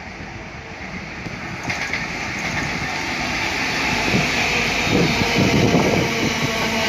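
Class 66 diesel locomotive with its two-stroke V12 engine running, passing close with a train of tank wagons. The engine and wheel noise grow steadily louder as it approaches, with a sharper hiss of wheels on rail coming in about two seconds in.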